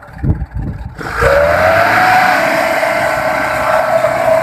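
Light truck's rear differential whining while driving: a loud high whine that starts about a second in, rises a little in pitch and then holds steady over the engine's rumble. The uploader says it sounds as if the differential is about to fall apart.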